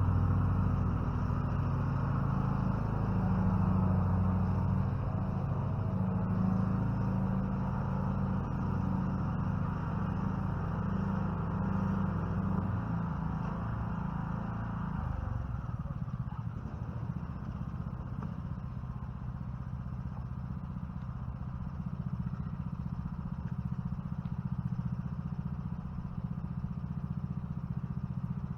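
An engine running steadily, its note shifting lower and quieter about halfway through, as if slowing down.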